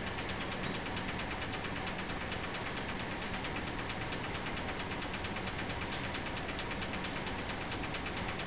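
Steady background hum and hiss with no distinct event.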